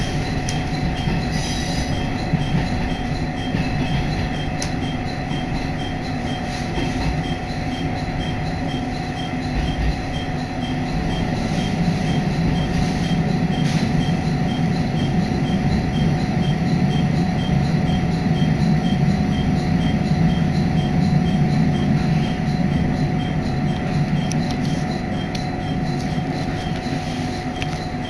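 Heard from inside the car, a Hisatsu Orange Railway diesel railcar running along the line with a steady rumble of engine and wheels and a high steady squeal over it, easing slightly near the end as it pulls into a station.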